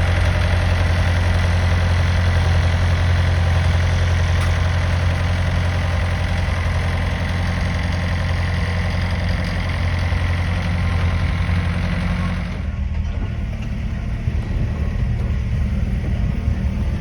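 1968 Chevrolet K20 pickup's engine running at a steady idle, with a strong low rumble. About thirteen seconds in, the higher part of the sound drops away abruptly and the low rumble carries on.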